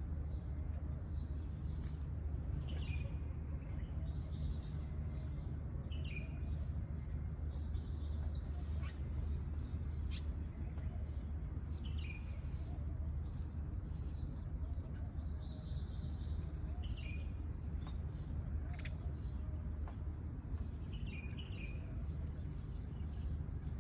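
Small songbirds, sparrows, chirping: a short falling chirp repeats every few seconds, with other brief high calls in between, over a steady low rumble.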